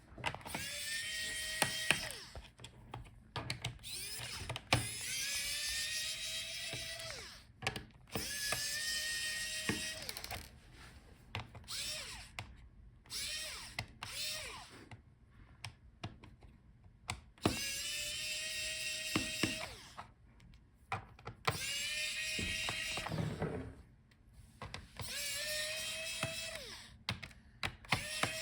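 Small electric screwdriver backing the screws out of a laptop's bottom case. It runs in short bursts, about eight in all, each spinning up with a rising whine and then holding, with small clicks and taps between screws.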